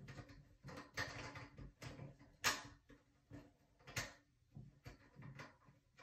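A few faint scrapes and knocks as a nut is twisted onto the toilet's fill valve and supply hose connection by hand under the tank. The strongest knock comes about two and a half seconds in, and another at about four seconds.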